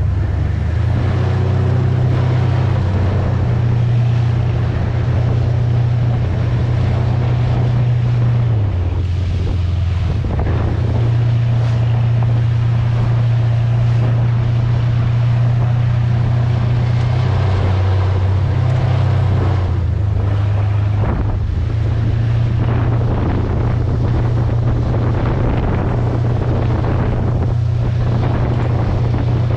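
Towboat's engine running steadily under load while towing another boat on a line, its low hum shifting slightly in pitch a few times. Wind buffets the microphone over the rush of the wake.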